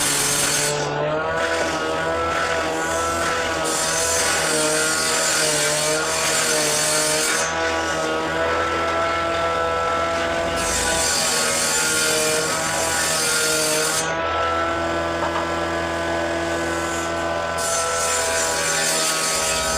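An electric woodworking power tool runs steadily with a motor whine that wavers slightly under load. A high hissing cutting noise comes and goes in passes several seconds long as wood is fed through it, with short breaks between passes.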